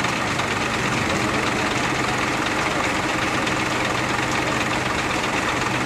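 Mobile crane's diesel engine running steadily at a constant speed, a low, even hum.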